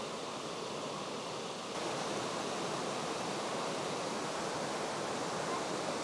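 Small woodland stream running over rocks in shallow rapids: a steady rush of water, a little louder from a couple of seconds in.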